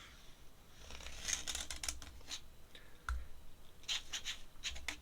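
Ink pen scratching across paper in quick, short strokes, a cluster of them, then a second run near the end. A soft knock comes about three seconds in.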